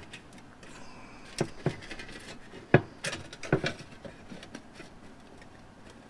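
Light knocks and clicks of sheet metal being handled: a rusty cut-out piece of fender shifted and pressed down onto a new steel patch panel to line it up. There are a handful of separate taps, the loudest a little before the middle.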